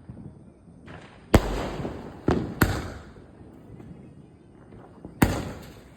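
Firecracker bangs from a Cock Brand multi-shot cracker: a sharp report about a second and a half in, a quick pair about a second later, and another near the end, each trailing off in an echo, with a weaker pop before the first.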